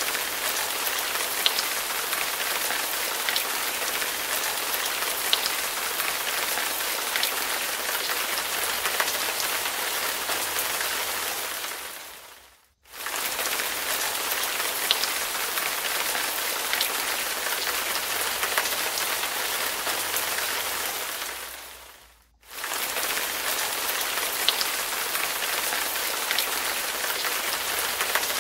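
Rain falling steadily, a dense even hiss with scattered small drop ticks. It fades out and cuts back in twice, about 13 and 22 seconds in.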